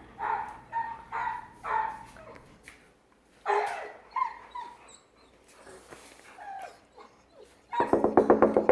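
Male dog whining and yelping in short, high cries, worked up by a female dog in heat. Near the end comes a loud, fast run of knocking, about a dozen raps a second.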